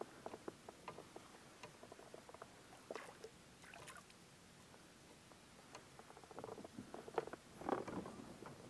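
Faint, irregular clicks and small water splashes as a hooked squid is reeled in on a spinning rod and drawn to the surface, the splashing busiest near the end.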